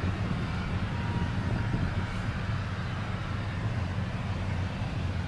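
Jet airliner's engines running steadily on the runway: a low, even rumble with a hiss of noise above it.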